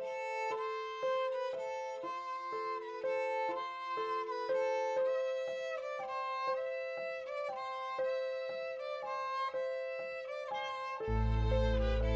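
Instrumental background music: a melody stepping from note to note about twice a second over a held note, with a loud deep bass part coming in near the end.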